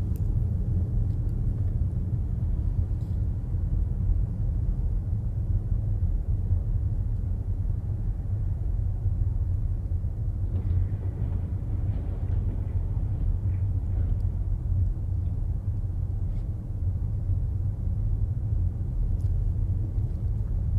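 Steady low rumble of road and engine noise from a vehicle driving along a highway, heard from inside its cabin.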